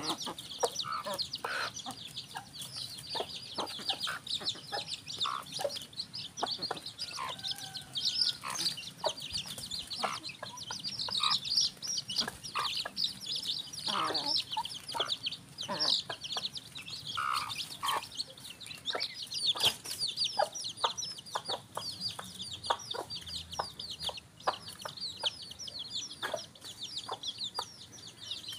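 Free-range village hen (ayam kampung) clucking now and then while her chicks peep almost without a break, high and rapid, with light scratching in dry leaves.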